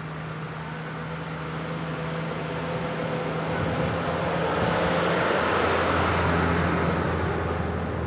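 A motor vehicle's engine passing by: a steady low hum whose pitch drops partway through, with the noise growing to its loudest about five to six seconds in and then easing off.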